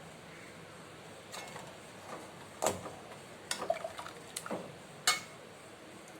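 Kitchen utensils clinking and knocking against dishes, about five separate sharp clinks spread over a few seconds, while pudding ingredients are measured and added.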